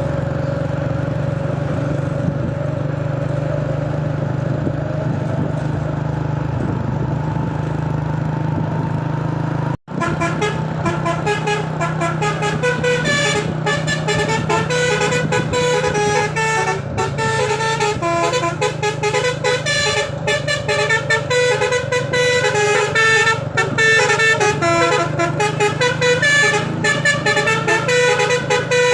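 A truck engine running steadily. After a sudden cut about ten seconds in, a telolet basuri V3 multi-tone air horn on a UD Quester truck plays a fast melody of changing notes.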